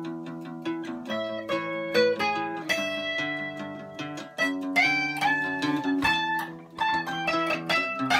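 Two guitars, an electric and an acoustic, playing an instrumental passage of picked notes and chords, with a few bent notes in the middle.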